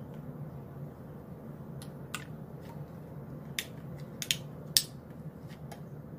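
Clear plastic blister packaging crackling and clicking as it is handled and a small part is pushed out of it: a scatter of short, sharp clicks, the loudest just under five seconds in, over a low steady hum.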